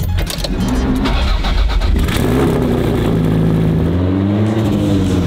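Sports car engine started with the key, running rough for a moment, then revving as the car pulls away, the engine note rising and falling in pitch.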